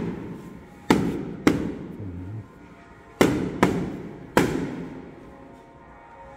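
Five sharp, loud bangs at irregular gaps, each followed by an echoing tail that dies away over about half a second.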